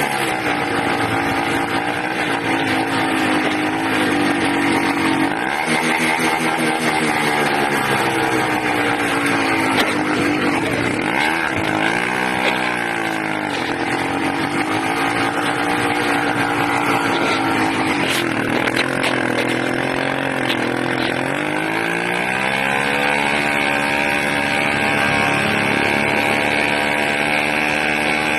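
80cc engine running loud, its speed rising and falling unevenly, with sharp dips about twelve seconds in and again around twenty seconds. The owner suspects an intake manifold leak at the carburetor.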